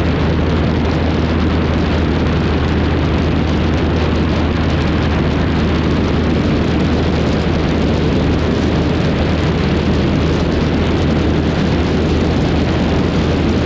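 Cessna 152's four-cylinder Lycoming engine running steadily under a heavy rush of wind over the wing-mounted action camera.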